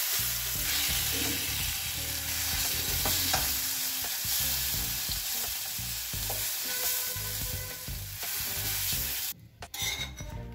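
Egg bhurji sizzling in butter on a hot tawa while a wooden spatula stirs and scrapes it across the griddle. About nine seconds in the sizzle cuts off abruptly, and a few clinks of metal tongs on the tawa follow.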